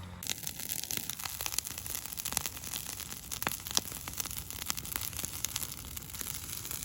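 A fire of dried, cut weeds burning, with a steady hiss and many quick, irregular crackles and pops.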